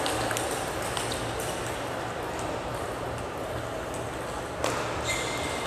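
Table tennis ball bouncing with light sharp clicks, over the steady murmur of a hall crowd; a sharper knock comes about four and a half seconds in, followed by a brief ringing tone.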